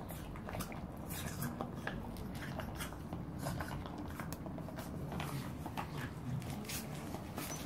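Dogs' claws clicking on paving stones and a ball being mouthed: faint scattered clicks and scuffs over a low steady rumble.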